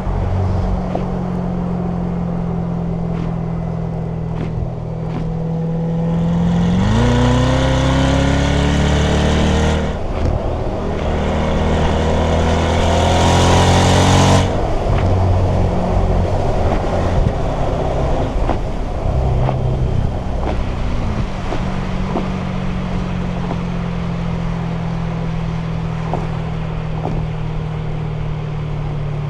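Chevrolet Corvette C8's V8 cruising at steady revs, then accelerating hard about a quarter of the way in. The revs climb, dip at a quick upshift, and climb again until the throttle is lifted about halfway through. The engine then settles back to a steady cruise.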